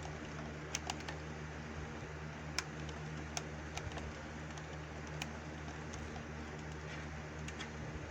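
Scattered light clicks and taps from hands handling the wiring and parts of the alarm setup, over a steady low hum.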